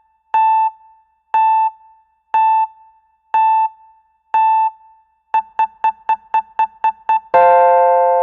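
Electronic countdown-timer beep sound effect. Short single-pitch beeps come once a second five times, then speed up to a quick run of about eight, then end a little after seven seconds in on one long, fading multi-note tone.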